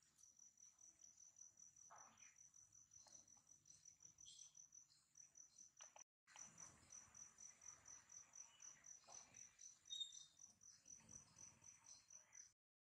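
Faint cricket chirping, a steady run of short high-pitched pulses, about four or five a second. It breaks off briefly about halfway through and stops shortly before the end.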